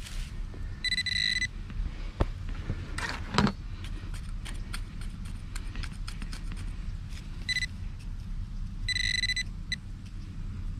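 Metal detector beeping a high tone in short bursts, about four times, as it signals a metal target in a clod of dirt. There are a few sharp knocks and scrapes of digging and handling soil about two to three and a half seconds in.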